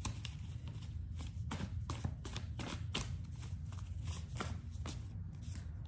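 Oracle cards being handled: a scatter of light, irregular taps and flicks over a low steady hum.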